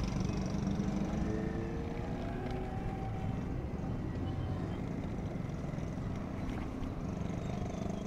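Street ambience: a steady low rumble of distant traffic.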